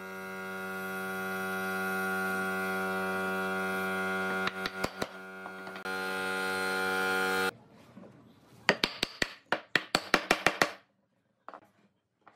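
A steady humming drone of one pitch with many overtones swells in and stops abruptly about seven and a half seconds in. Then comes a quick run of about a dozen sharp wooden knocks as glued bench parts are tapped together.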